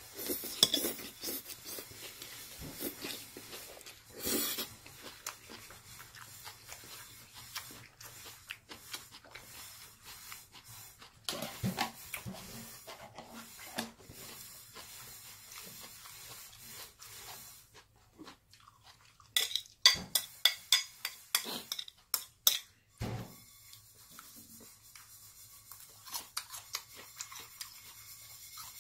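Chewing a mouthful of jjajang noodles and shredded green onion, with metal chopsticks clicking and scraping against a ceramic dish; a quick run of loud sharp clicks comes about twenty seconds in.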